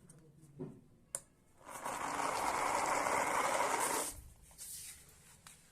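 Small electric motor whirring for about two and a half seconds, after a single click, likely the homemade RC car's drive motor running.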